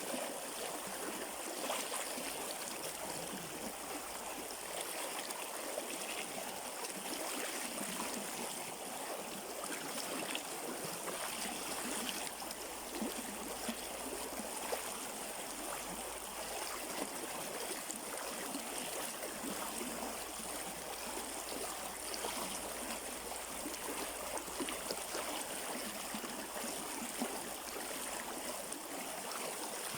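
River water running over rocks, a steady rushing flow with small splashes and gurgles.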